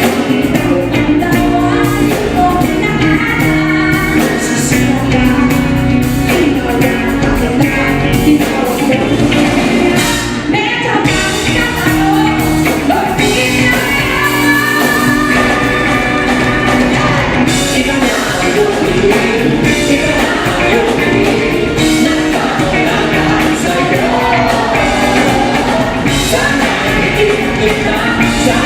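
Live band playing rock music with a singer's voice carried over it, steady and loud throughout.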